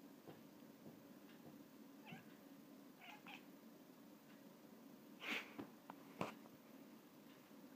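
Russian blue cat making a few short, quiet calls while fixed on a fly, with a louder call a little past the middle followed by two sharp taps.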